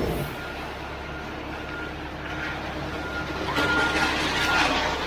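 Concrete mixer truck's diesel engine running steadily during the pour, with a short high beep repeating about every half second. A louder rush of noise comes in about three and a half seconds in.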